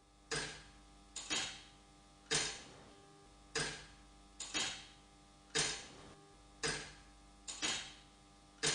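A regular series of sharp metallic knocks, each ringing briefly, about one a second, with every third knock doubled.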